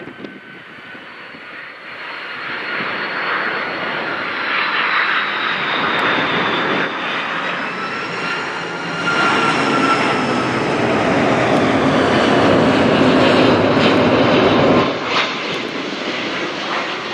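Boeing 747-400's four Pratt & Whitney PW4056 turbofan engines spooling up, the roar building steadily louder with a high whine that rises slightly in pitch. It eases off a little near the end.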